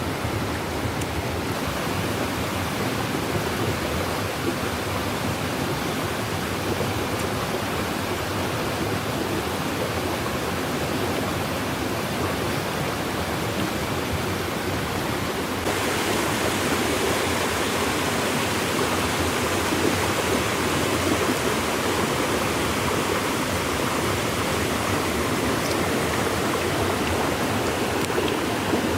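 Steady rushing of flowing water, a little louder and brighter from about halfway through.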